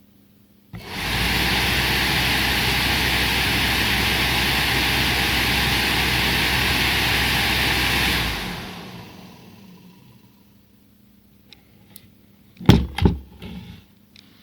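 Used electric radiator cooling fan from a 2006 Renault Scenic switched on, running at a steady speed with a rush of air for about seven seconds, then cut off and spinning down. A few sharp knocks near the end are the loudest sounds.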